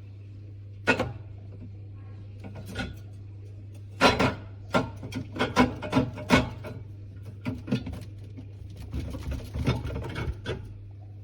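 Subcold Cave50 mini beer fridge running with a steady low hum, while it is handled with a series of knocks, clunks and rattles, thickest in the middle and again near the end.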